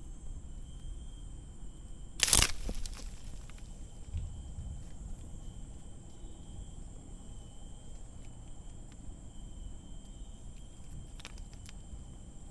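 Forest ambience of steady high-pitched insect trilling, broken about two seconds in by one short, sharp, loud noise, with a few faint clicks near the end.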